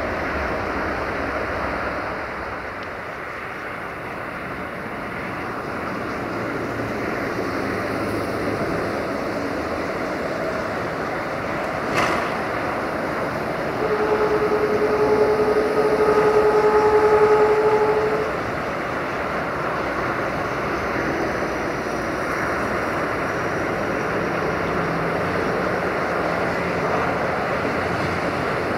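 A railway horn sounds one steady single-tone blast of about four seconds, starting roughly halfway through, over a constant noisy outdoor background. A single sharp click comes shortly before the blast.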